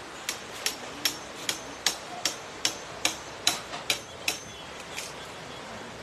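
A hammer driving nails into a timber frame: a steady run of sharp blows, about two to three a second, some with a faint metallic ring, stopping about four and a half seconds in.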